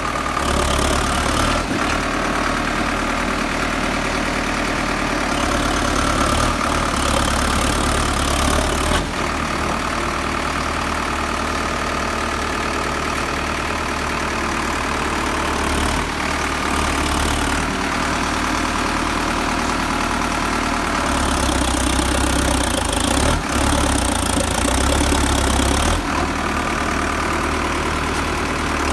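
Sonalika DI 60 tractor's diesel engine running steadily, getting louder and easing back several times.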